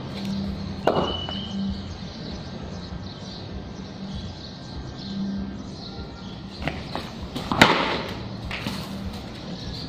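Sharp knocks: one about a second in and a louder one near the end, with a few weaker knocks just before it, over a low steady hum.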